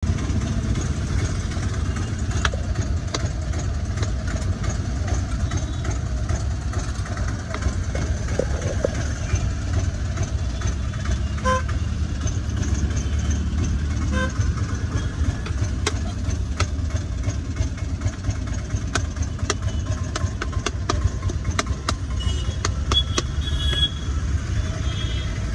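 Steady low rumble of street traffic with two short car-horn toots about 11 and 14 seconds in. In the second half comes a quick run of sharp taps: a knife cutting through dragon fruit onto a plastic cutting board.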